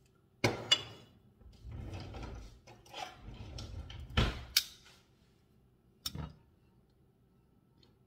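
Kitchen handling sounds: a few sharp knocks and clunks, twice about half a second in, twice around four seconds in and once about six seconds in, with low rustling between.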